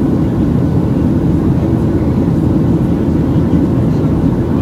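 Steady low roar inside the cabin of a Boeing 737-700 during the climb: the CFM56-7B engines and the rush of air over the fuselage, even and unchanging.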